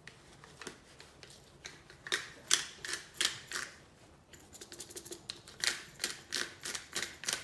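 Stonemill disposable pepper grinder being twisted by hand, its ceramic burr crunching peppercorns in a run of quick ratcheting clicks, with a short pause partway through. The peppercorns are still damp from the hot-water refill and come out soggy.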